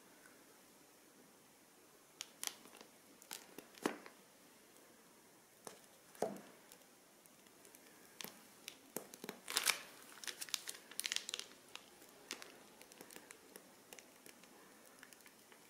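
Plastic piping bags being handled, crinkling and tearing in scattered short bursts, busiest a little past the middle.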